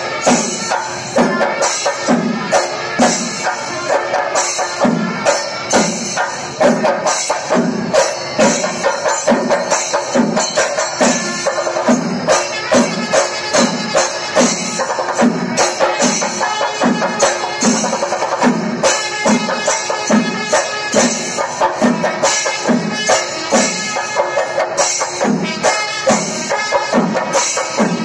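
Festival percussion ensemble playing drums with jangling cymbals, a steady deep beat about every two-thirds of a second under a dense, unbroken rhythm.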